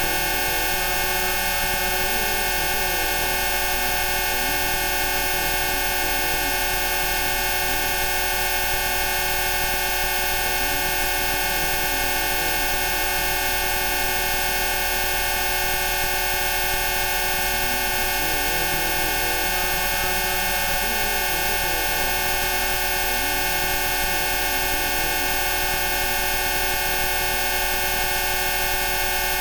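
Synthesized Rife frequency tones: many steady electronic tones sounding together as one dense, unchanging drone, with faint wavering tones drifting in the middle range.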